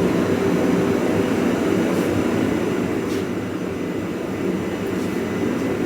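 Forge running with a steady roar, with a few faint clicks over it.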